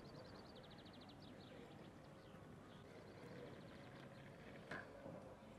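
Near silence: faint outdoor ambience of an open town square, with a faint, rapid high-pitched trill in the first second and a single short click near the end.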